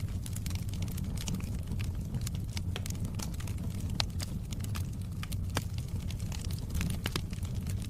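Wood fire crackling in a fireplace: a steady low rumble under frequent, irregular sharp pops and crackles, with one louder pop about four seconds in.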